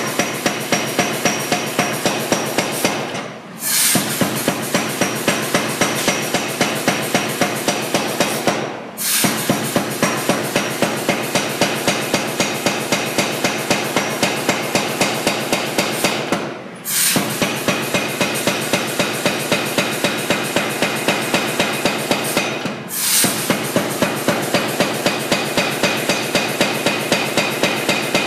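Blu Max 110 power hammer forging a red-hot steel bar: rapid, evenly spaced blows about three a second, in five runs with brief pauses between them.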